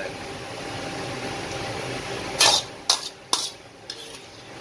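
Metal ladle knocking and scraping against a steel wok after serving soup: three sharp clanks starting about two and a half seconds in, the first the loudest, over a steady background hiss.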